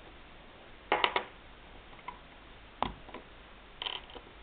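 Fidget spinner pieces clicking and knocking as they are handled and set down on a table: a quick run of three clicks about a second in, a single sharp knock near three seconds, and a few softer clicks near the end.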